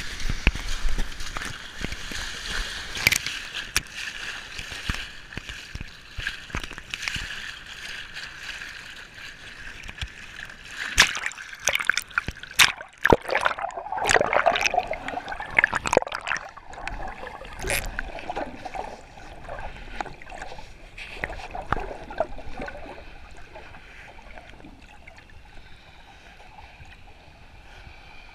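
Small waves breaking and sloshing in the shallows, with splashes and gurgling. About halfway through, the sound turns muffled and quieter as it is heard from under the water.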